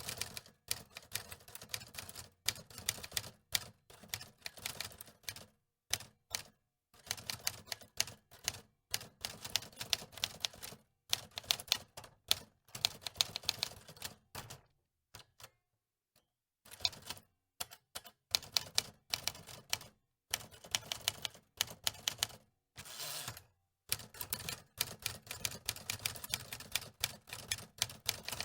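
Antique typewriter keys clacking in runs of rapid strikes, with short pauses between runs and a longer pause about halfway through.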